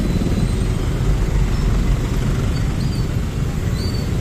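Steady low rumble of motor scooter engines crawling in a dense traffic jam, heard from one of the scooters, with a few faint high chirps.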